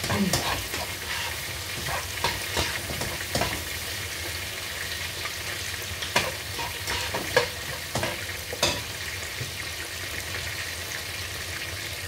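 Chicken pieces frying in hot oil: a steady sizzle with scattered sharp pops and knocks. The chicken is being browned to a light golden colour before it goes into the sauce.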